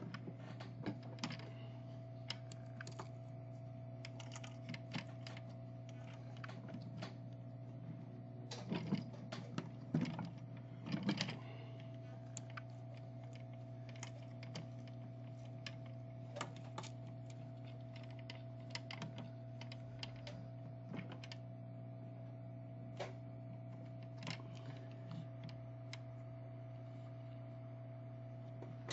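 Irregular light clicks and taps of small hand tools on a bench during a phone soldering job, with a cluster of quicker taps about ten seconds in. A steady electrical hum from bench equipment runs underneath.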